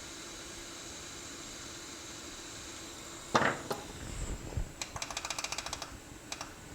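Steady background hiss. About three and a half seconds in there is a sharp click, then a quick run of small clicks and taps, about ten a second, from small tools being handled on a repair bench.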